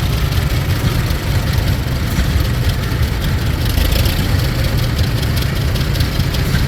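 Vintage farm tractor engine running at a low, steady idle, a deep, even chugging.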